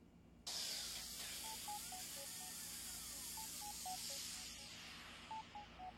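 A hiss of noise that starts suddenly about half a second in and slowly fades, with a short tune of soft beeping notes repeating three times under it.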